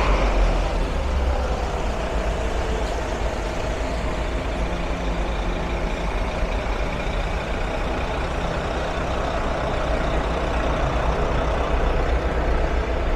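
Street traffic with a heavy vehicle's engine running close by: a steady low rumble over an even wash of traffic noise.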